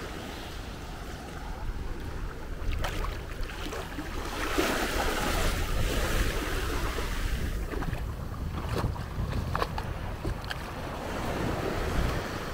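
Small, gentle sea waves breaking and washing up the beach, kept low by the breakwaters, with wind rumbling on the microphone. The loudest surge of surf wash comes about four and a half seconds in and lasts about three seconds.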